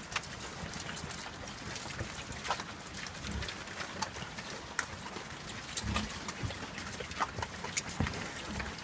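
A group of piglets feeding on vegetable scraps: many small wet crunching and chomping clicks with snuffling, and a few short low grunts about a third of the way in, around two-thirds, and near the end.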